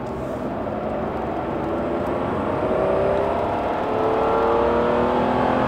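Mercedes-Benz 300CE W124's 3.0-litre inline-six accelerating under throttle, heard from inside the cabin. From about halfway in, its note climbs steadily in pitch and grows louder.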